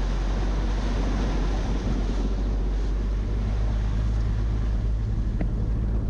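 Toyota Land Cruiser driving off-road: the engine drones steadily under wind and rough road noise.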